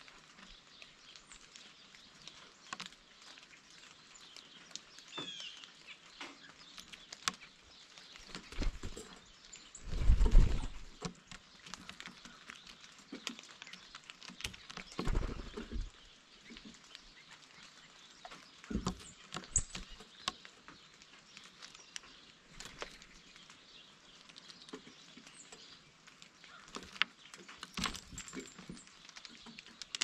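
Blue jays at a feeder: scattered sharp taps and knocks of pecking and landing, with several low thumps, the loudest about ten seconds in. A faint short bird call or two sounds between them.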